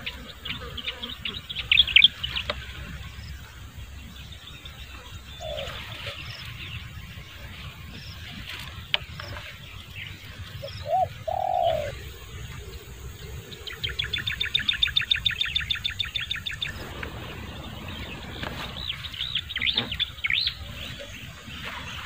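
Wild birds calling: high chirps near the start and end, a fast trill of about ten notes a second partway through, and two short low dove coos near the middle.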